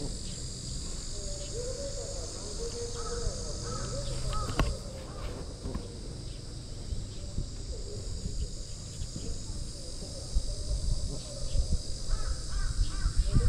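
Harsh bird calls: a few short calls around three to five seconds in and a quick run of repeated calls near the end, over a steady high hiss. A single sharp click comes about four and a half seconds in.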